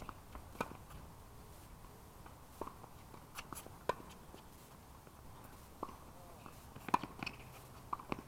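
Tennis rally on a hard court: irregular sharp pops of rackets striking the ball and the ball bouncing, the loudest about seven seconds in.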